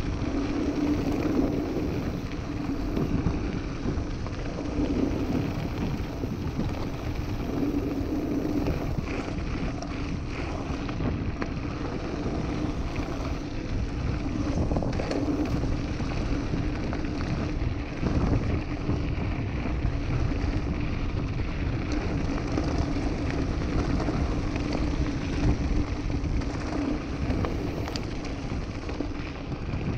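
Mountain bike tyres rolling and crunching over a loose gravel track, mixed with steady wind noise on the camera's microphone.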